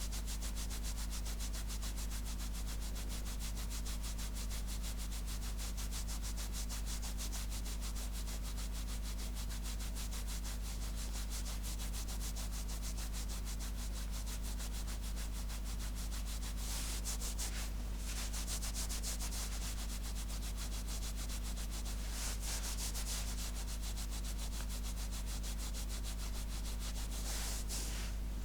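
Fingernails scratching fabric in fast, even strokes, an ASMR clothing-scratching trigger, with brighter, harder passages three times in the second half.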